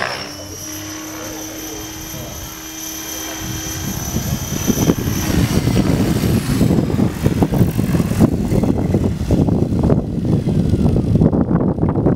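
Radio-controlled helicopter flying: a steady high-pitched whine from its motor and rotor for about the first five seconds, then a louder, rough, choppy rotor noise that builds as it comes down close over the grass.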